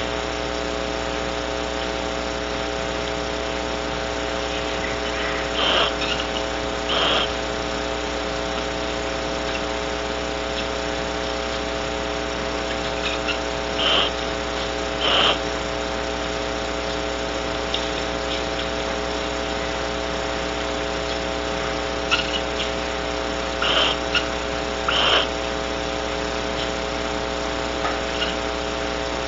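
Barn owls giving short raspy hisses in three pairs, the two calls of each pair about a second apart, over a steady hum.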